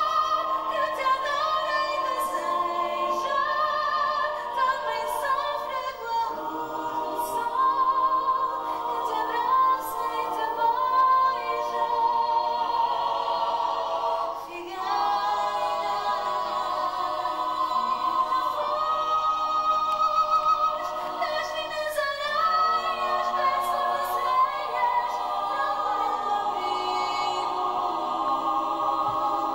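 A stage cast of men's and women's voices singing a song together in harmony, with short breaks between phrases about six seconds in and again near the middle.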